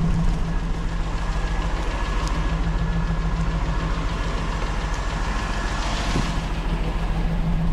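Vehicle engine running at a steady speed, a low even drone with a brief hiss about six seconds in.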